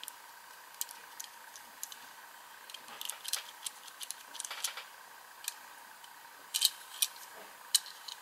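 Irregular small clicks and taps of fingers handling a die-cast metal toy car, over a faint steady hum. The clicks bunch together about three seconds in, and the loudest come about six and a half to eight seconds in.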